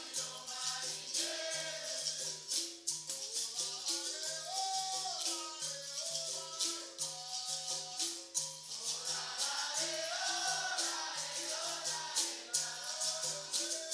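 Capoeira roda music: berimbaus playing a repeating two-note rhythm, with the rattle of caxixi shakers and pandeiro jingles, under a group of voices singing.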